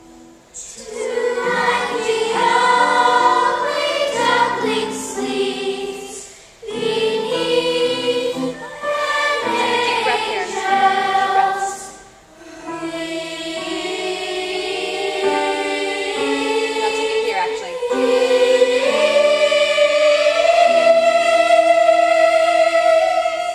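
A chorus of stage-cast voices sings a song together in three phrases, with brief breaks about six and twelve seconds in. It ends on a long held note.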